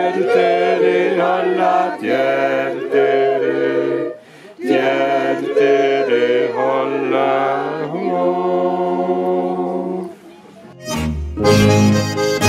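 Several voices singing together in harmony, in phrases of a few seconds with short breaks between them. Near the end a different piece of music with a strong bass and a beat cuts in.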